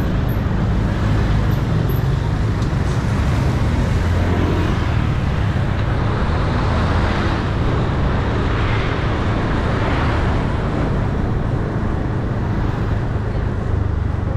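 Motor scooter traffic heard from a moving vehicle in the flow: a steady low rumble of engines and road noise, swelling for a few seconds around the middle.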